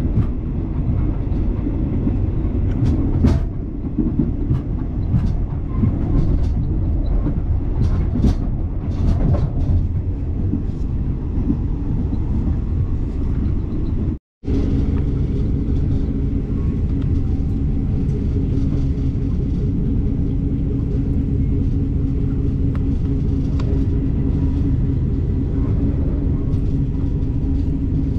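Passenger train in motion heard from inside the carriage: a steady low rumble, with scattered clicks and knocks over the first ten seconds or so. The sound drops out for a split second about halfway through, then the rumble goes on steadier with a low hum.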